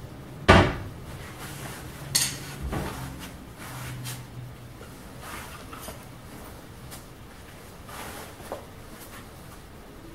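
Knocks and clatter from work on kitchen base cabinets: a sharp loud knock about half a second in, another about two seconds in, then lighter scattered clicks and taps.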